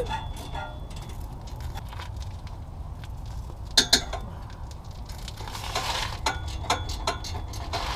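Metal clinks and scrapes from a breaker bar and socket being worked on a tight exhaust bolt under a car, with two sharp metallic knocks close together about four seconds in.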